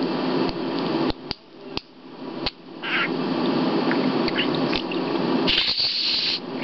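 Budgerigar chattering and warbling in a continuous gritty run, broken by sharp clicks, with a louder high screech near the end.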